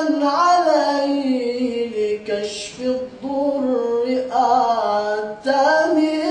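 A man singing an Islamic ibtihal (devotional supplication) unaccompanied, in long, ornamented held notes that waver up and down in pitch, with brief breaks for breath about two and five seconds in.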